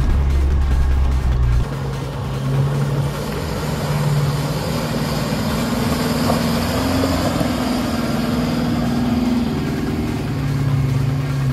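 Four-wheel-drive engines in a shallow creek crossing. A steady, deep engine drone changes abruptly about two seconds in to a Toyota Hilux engine pulling through the water, with water splashing off the tyres.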